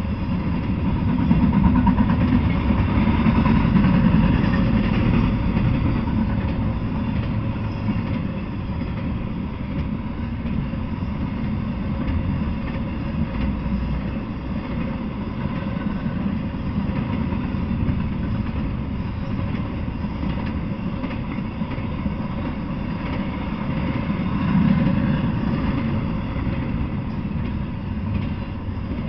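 Intermodal freight train rolling past at close range: a steady rumble of cars and wheels on the rails. It swells louder about two to four seconds in and again near the end.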